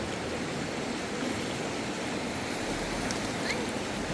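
Steady rushing of running water, with a brief faint high chirp about three and a half seconds in.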